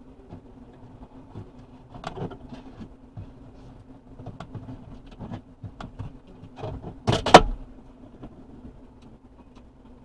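Honeybee colony humming steadily at close range inside the hive. Scattered scratchy knocks come from bees crawling and bumping on the camera, the loudest a sharp double knock about seven seconds in.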